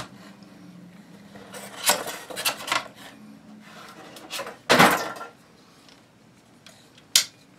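Handling noise from a Chiappa Little Badger folding .22 rifle as it is lifted out of its cardboard box and moved about: a few light knocks around two seconds in, and a louder clatter about five seconds in. One sharp click comes near the end, as the folded rifle is swung open.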